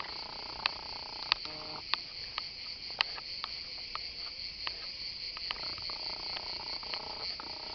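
Cicadas singing in a continuous high buzz, with footsteps ticking on a dry dirt path about every half second.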